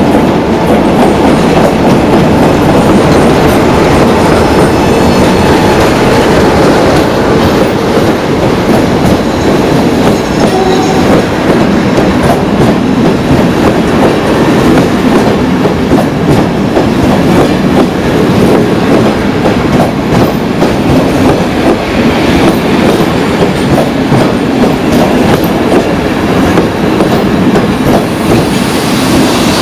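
Loud, steady rumble of a locomotive-hauled passenger train running past close by, its coaches' wheels rolling along the track.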